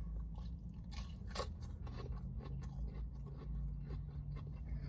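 A person chewing a bite of burger, with faint crunching and small clicks over a steady low hum.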